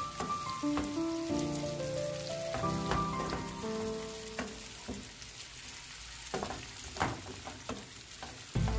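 Chopped green bell peppers and red onion frying in oil in a pan, a crackling sizzle with scattered pops. Background music with a slow stepping melody plays over it for the first half, then falls away, leaving the sizzle alone.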